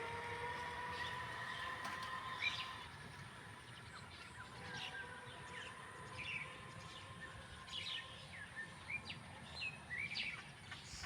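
Small birds chirping in many short, quick calls over a steady low rush. For the first two and a half seconds a steady droning tone with overtones sounds and then fades out.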